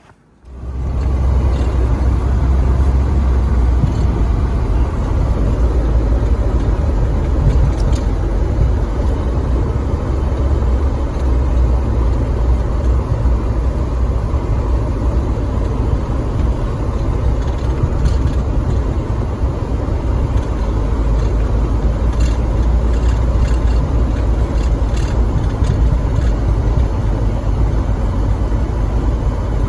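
Vehicle engine running steadily with a deep low rumble while plowing snow, cutting in suddenly just after the start.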